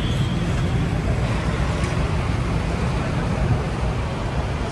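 Steady low rumble of road traffic, with no single sound standing out.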